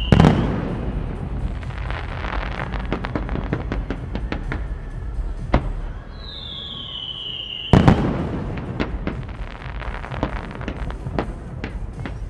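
Aerial fireworks shells bursting: a heavy bang right at the start, then several seconds of crackling stars and a single sharp report. A whistle falls in pitch just before a second heavy bang about eight seconds in, followed by more crackling.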